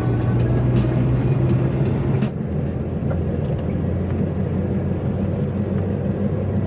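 Car driving, heard from inside the cabin: a steady low hum of engine and road noise. The sound changes abruptly a little over two seconds in.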